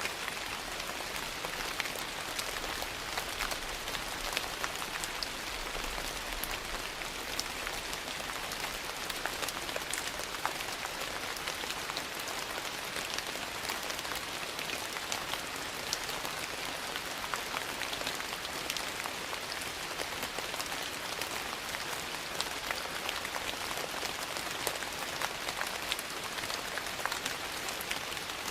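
Steady rain falling: an even hiss scattered with many small sharp ticks.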